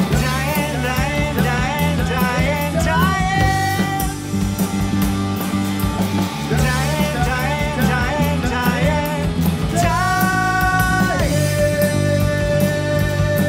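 Rock song played by a band on electric bass, electric guitar and drums, with a sung melody and a few long held notes toward the end.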